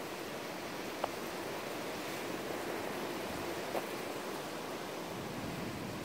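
Gusty wind rushing steadily, with two brief faint knocks, one about a second in and one near four seconds.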